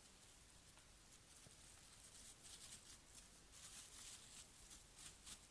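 Faint crinkling and rustling of a plastic poly bag being pulled off, in short irregular bursts through the second half.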